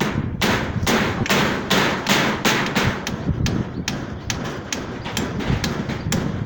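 Hammering on a building site: a steady run of sharp hammer blows, about two to three a second, coming faster and less evenly in the second half.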